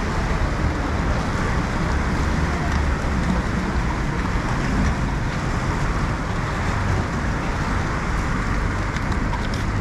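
Steady city street noise in the rain: traffic and the hiss of rain blend into an even rumble, with no single event standing out.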